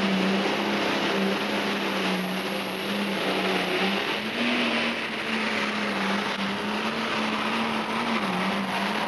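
8,200 lb diesel super stock pulling tractor running flat out under load as it drags the weight sled, a steady engine note over a loud rush of exhaust and turbo noise. The pitch sags slightly about eight seconds in.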